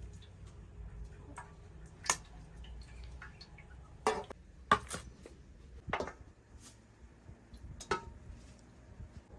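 A handful of sharp knocks and clinks from hard objects being handled, irregularly spaced, with fainter ticks between them.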